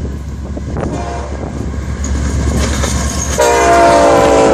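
Florida East Coast Railway freight train's lead diesel locomotive, number 102, approaching with a steady low engine rumble, then sounding its air horn, a loud chord of several notes held from about three and a half seconds in as it draws alongside.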